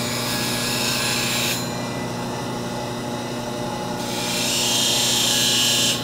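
Bench grinder motor running with a steady hum while a steel woodturning gouge is ground against the wheel, a hiss of metal on the wheel for the first second and a half and again from about four seconds in.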